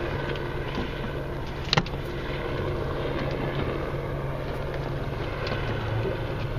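Boat engine idling steadily under the sound of wind and water, with a single sharp click about two seconds in.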